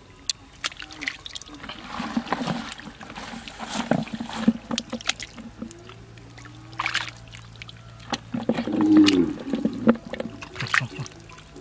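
Muddy shallow water sloshing, splashing and trickling in irregular strokes as hands grope through mud in a canal to catch fish. Over it come a few short low calls, the loudest about nine seconds in.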